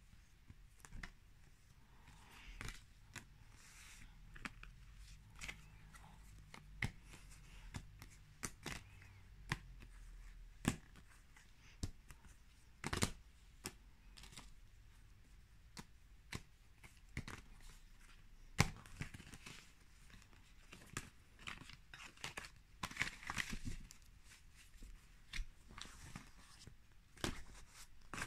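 Tarot cards being gathered up and stacked by hand on a cloth-covered table: irregular light clicks, taps and slides of card against card.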